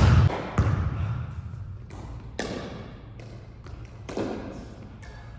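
A basketball bouncing on a hardwood gym floor: two loud thuds at the start, then lighter bounces and dribbles that fade, each echoing briefly in the gym.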